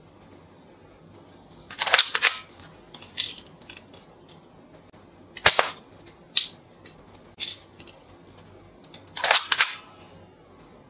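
Toy rifle firing: a quick cluster of sharp cap-gun-like shots about two seconds in and again near the end, with single sharp cracks between them.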